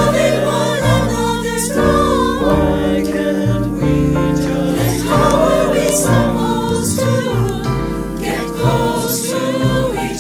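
Mixed choir of men's and women's voices singing in harmony, a choral arrangement of a pop song.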